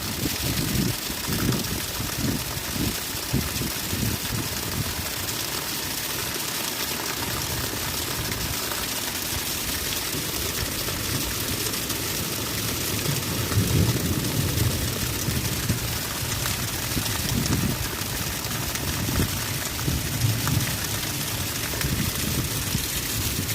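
Heavy rain falling steadily, with irregular low rumbling surges underneath.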